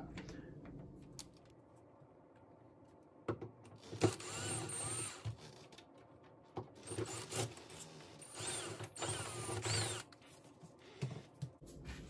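Craftsman cordless drill/driver running in three short bursts as it backs out the deadbolt's mounting screws, the motor whine rising and falling in pitch.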